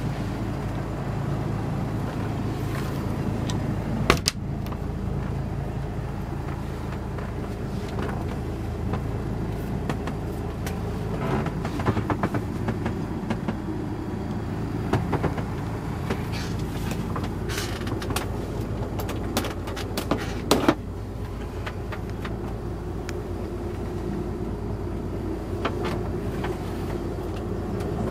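Six-cylinder Mercedes marine diesel running steadily, a low hum heard from inside the barge's cabin. A few sharp knocks and clicks stand out over it.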